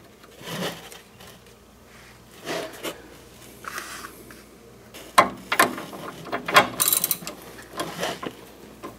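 Socket wrench ratcheting in irregular spells, with clinks of metal tools, as the jam nut is run down onto the sway bar bushing bolt. The clicking is thickest in the second half.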